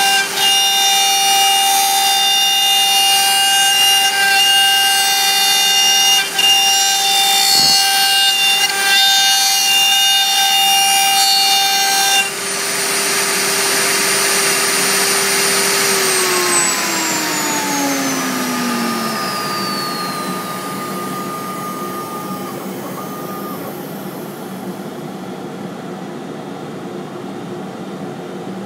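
CNC router spindle whining steadily as it cuts 3/4-inch MDF. About twelve seconds in the sound changes abruptly, and a few seconds later the whine falls in pitch as the spindle spins down, while a steady rushing noise carries on and slowly fades.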